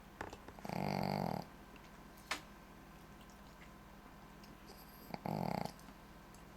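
A Shih Tzu snoring: two loud, buzzy snores about four and a half seconds apart, with a single sharp click between them.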